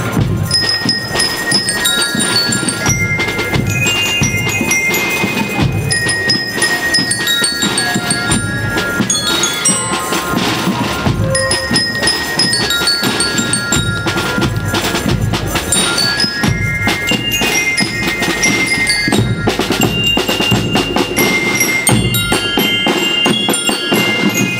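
School rhythmic band playing a march: bell lyres ring out a bright stepping melody over a steady beat of snare and bass drums.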